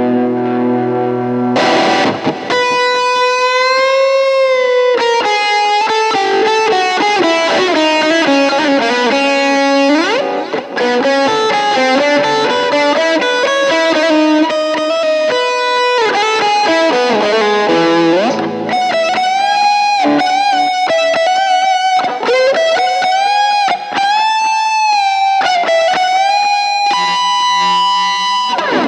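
SQOE SEST250 electric guitar played through an M-VAVE Cube Baby effects unit: a single-note lead solo full of string bends and vibrato, closing on a long held note.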